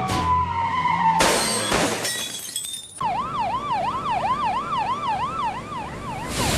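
An emergency-vehicle siren wailing, its pitch sweeping up and down quickly, about two and a half times a second, fading near the end. Before it, for the first few seconds, there is noisy crashing with a falling tone.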